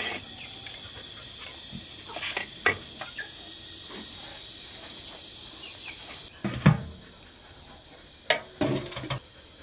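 Insects calling in a steady high drone, with a few sharp knocks of a cleaver on a wooden chopping block. About two-thirds of the way in the insects grow faint and louder clanks and thumps follow, as pumpkin pieces are tipped from a metal bowl into a metal steamer pot.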